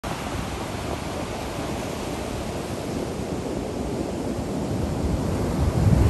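Ocean surf: waves breaking and washing up the beach in a steady rush that grows louder near the end.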